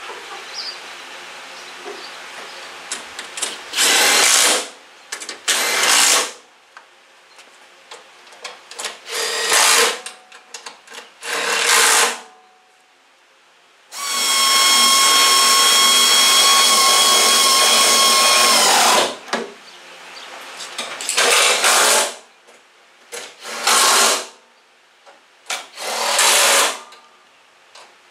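Cordless power tool driving fasteners: about seven short runs of a second or so, and one longer run of about five seconds with a steady whine.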